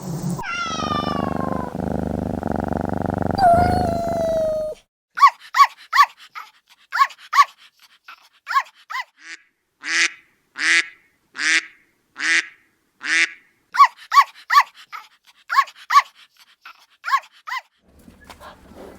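A kitten meows two or three times, each meow sliding down in pitch, over a steady background. A small dog or puppy then gives a long run of short, high yips and barks, some longer and drawn out near the middle.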